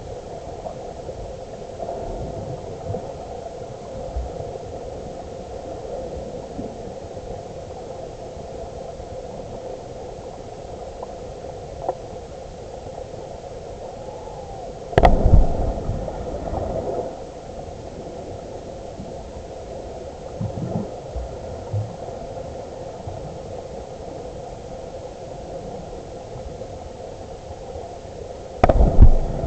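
Underwater river noise heard by a GoPro in its waterproof housing lying on the riverbed: a steady rushing hiss with a low hum. Two loud knocks against the housing, about halfway through and near the end.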